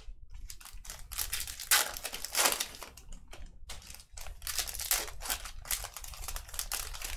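Trading card packs and cards being handled: crinkling of foil pack wrappers and quick, irregular clicks of stiff chromium cards.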